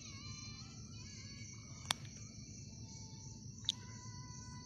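Night insects, crickets, trilling in a steady high chorus over a low background rumble, broken by two sharp clicks nearly two seconds apart.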